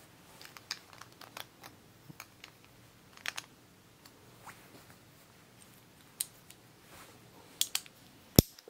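Small clicks and taps of a Metal Fight Beyblade's metal wheel and plastic parts being fitted and turned by hand while it is put together, irregular, with a sharper, louder click near the end.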